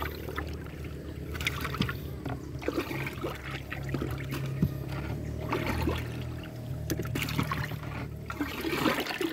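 A wooden board stirring a drum of muddy soil-and-manure solution: uneven sloshing and swishing of the liquid with small knocks, as the mix is stirred until even.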